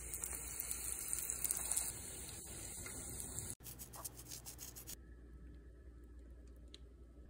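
Panko-battered corn dog sizzling as it deep-fries in hot oil, a steady crackling hiss that cuts off suddenly about three and a half seconds in. Fainter, softer handling sounds with a few small clicks follow.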